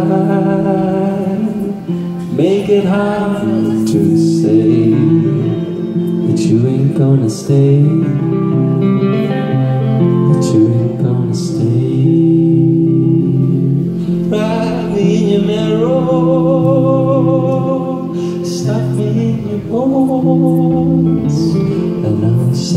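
Live band music: electric guitar over a steady accompaniment, with a man singing at times.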